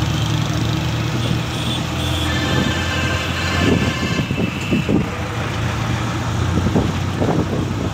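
Engine and road noise inside a moving vehicle in city traffic, with a steady low hum. From about two seconds in, a high pitched tone sounds for about three seconds.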